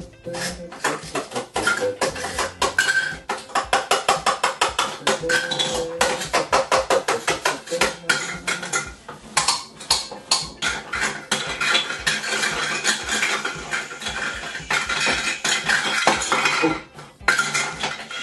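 Toy cooking utensils and play food clattering and tapping against a wooden toy kitchen and its toy pots, in a quick run of clicks and knocks with a brief pause shortly before the end.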